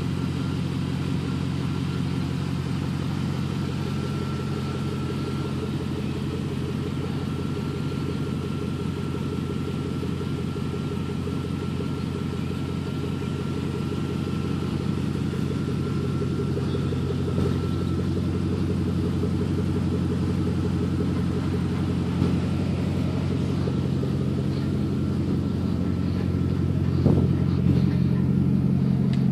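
Chevrolet Avalanche's V8 engine idling steadily, a little louder toward the end.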